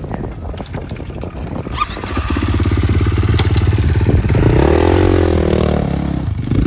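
Four-stroke Husqvarna motocross bike's engine running, coming in loud about two seconds in. Around four seconds in it is revved, pitch rising and falling as the bike pulls away, then drops back.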